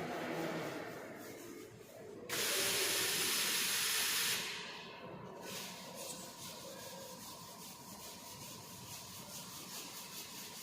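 A sudden loud hiss of escaping air starts about two seconds in, holds for about two seconds and then tails off. A faint steady whine continues afterwards.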